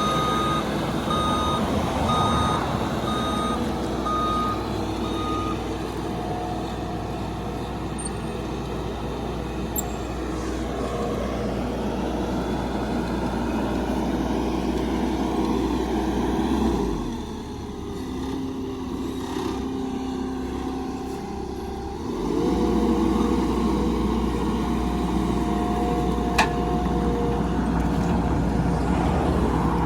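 Truck engine running with a backup alarm beeping about once a second for the first five or six seconds. The engine drops back about 17 seconds in and picks up again around 22 seconds, as the truck pulls on the rope tied to the pine.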